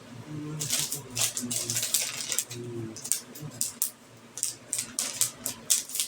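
Rapid, irregular light clicks and taps, a few a second, like small hard objects being handled or tapped.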